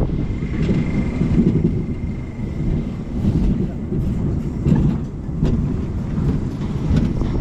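Low rumble of a small theme-park ride train running along its track, with scattered clicks and a thin high squeal that fades out after about two seconds.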